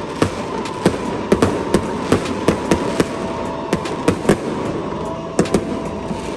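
Aerial fireworks going off overhead: an irregular run of sharp bangs and crackles, about three a second.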